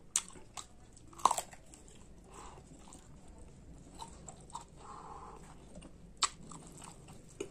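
Close-up eating sounds of a person chewing a mouthful of pork curry and rice, with wet smacks and sharp clicks. The loudest clicks come about a second in and again about six seconds in.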